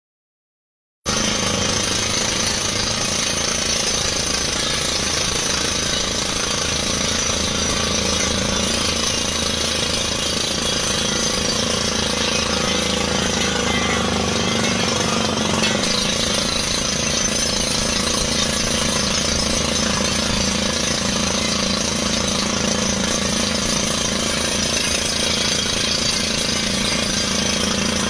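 Truck-mounted down-the-hole water well drilling rig running, with rapid steady pneumatic hammering over the drone of its engine and air compressor. It starts abruptly about a second in and runs at an even level.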